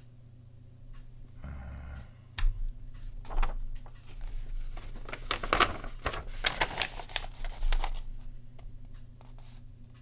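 Keyboard with low-profile switches clicking and clattering under the hands, in irregular clusters that are densest in the middle. A brief low buzz comes about a second and a half in.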